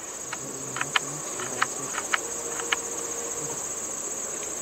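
Steady high-pitched chirring of insects in dry prairie grass, with a scattering of faint short clicks.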